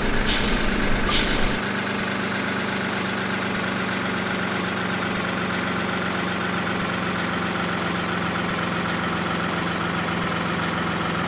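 Truck engine idling steadily, with two short air-brake hisses in the first second and a half.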